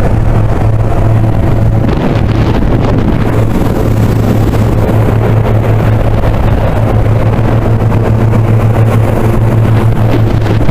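Yamaha Exciter jet boat's engine running loud and steady at speed, a constant low drone with a rush of water and wind over it.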